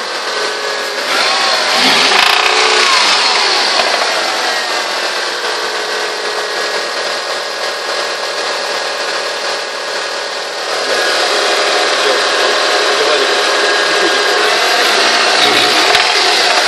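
Mitsubishi Lancer IX 2.0 Sport's 2.0-litre four-cylinder engine running, with a brief rise and fall in revs early on and getting louder about two-thirds of the way in. It carries a knock that the owner suspects is a connecting rod.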